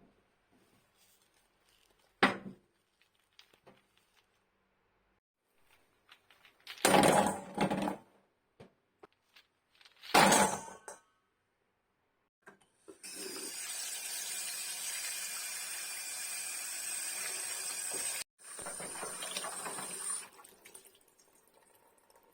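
Hard objects clattering in a container twice, then a water tap running steadily for about seven seconds, with a brief break partway through.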